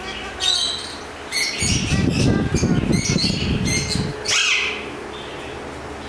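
Alexandrine parakeets squawking: a string of short, harsh, high calls, with a drooping call about four seconds in. A rustling noise runs underneath from about one and a half to four seconds in.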